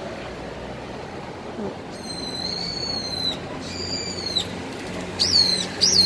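A parent bird's high, whistled alarm calls, which are the parent crying out while its fledgling is handled. There is a long held note, then a shorter one, then two short rising-and-falling calls near the end.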